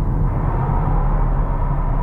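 A car being driven: steady road and engine rumble, with a faint steady whine above it.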